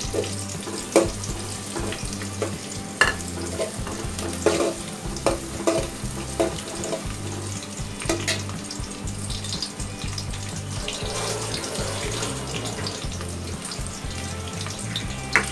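Sliced onions sizzling as they fry in oil in an aluminium pot, stirred with a steel ladle that clinks and scrapes against the pot several times.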